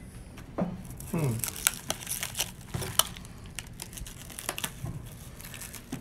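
Plastic packing wrap crinkling and tearing as it is pulled off a wrapped ceramic piece, with irregular sharp crackles, busiest in the first half.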